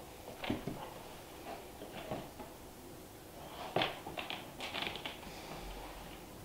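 Scattered light knocks and taps of small wooden pieces being set down, shifted and pressed together on a wooden plaque. The sharpest knock comes a little before four seconds in, followed by a quick cluster of taps.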